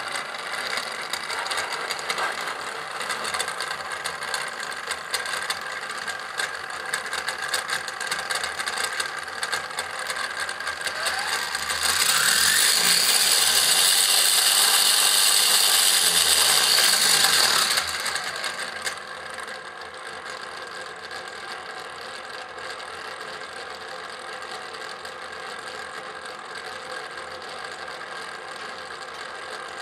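Small electric motor driving a gear train of metal construction-kit parts with plastic gears, running with a steady whir and fine gear rattle. About twelve seconds in the sound rises in pitch and gets much louder for about six seconds, then falls back to a quieter, steady run.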